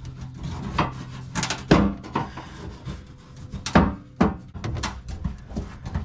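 Scattered knocks and clanks of hand tools and metal parts, about half a dozen sharp strikes, as the car's fuel-tank fasteners are worked at from underneath. A faint low hum fades out a little way in.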